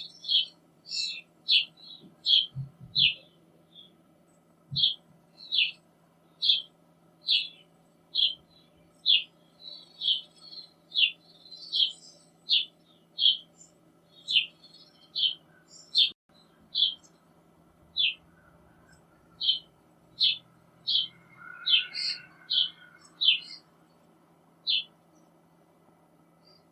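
Young common starling calling over and over with short, harsh begging calls, each one dropping slightly in pitch, about one call every three-quarters of a second.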